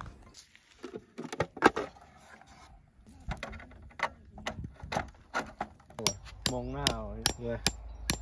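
Scattered sharp knocks and clicks of camp set-up work. From about six seconds in, a hammer strikes a tent peg into the ground in a run of knocks, roughly three a second.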